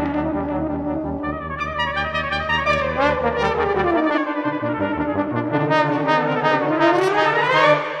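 Background music with a brass sound. In the second half a line glides down in pitch and back up again.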